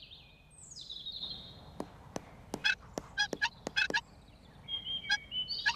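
Light, irregular hammer taps on a shed window frame, about a dozen knocks with a short ring, as a cartoon sound effect. High chirping birdsong comes before them and again near the end.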